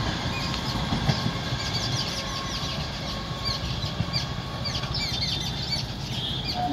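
Birds chirping in quick, repeated short calls over the low rumble of an electric local train (EMU) fading as it runs away into the distance.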